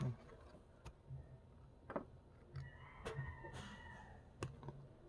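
Faint handling of a thin cardboard earbud box: a few separate sharp clicks and taps, with a brief scraping rustle about three seconds in.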